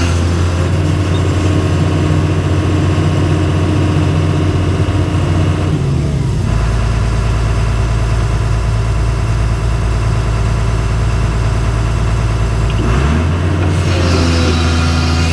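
Cat 315C L excavator's diesel engine running steadily, heard from inside the cab. Its engine speed drops about six seconds in and comes back up just before thirteen seconds.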